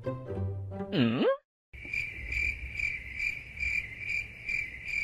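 The end of a music track with a sliding, swooping tone, a brief gap, then a cricket chirping in a steady rhythm, a little more than two chirps a second.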